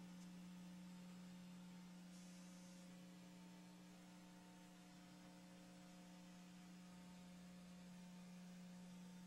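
Near silence: a faint, steady electrical hum with low hiss, and a brief faint hiss about two seconds in.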